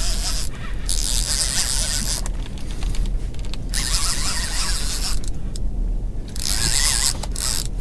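Boat-fishing multiplier reel ratcheting and whirring in bursts as it is cranked against a heavy fish, with short pauses between spells of winding. The rod is hard bent while a conger is pumped up off a wreck.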